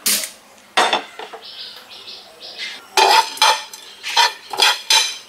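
Spatula scraping and clattering whole spices around a dry pan as they are dry-roasted. A couple of separate strokes near the start, then a quicker run of strokes, about three a second, in the last two seconds.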